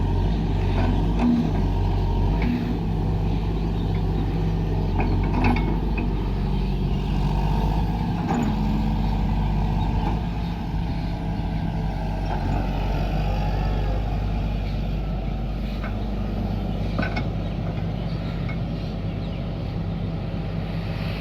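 Excavator engine running steadily, with a few brief sharp knocks now and then; it eases slightly about halfway through.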